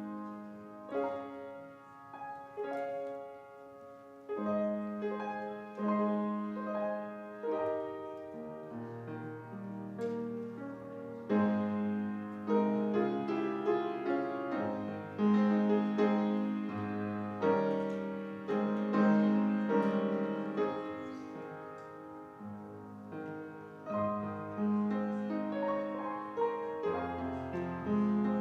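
Solo piano playing a slow, gentle instrumental offertory, with struck chords that ring and fade.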